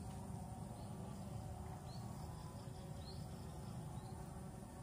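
Outdoor ambience: a few short bird chirps over a steady high insect drone and a low steady rumble.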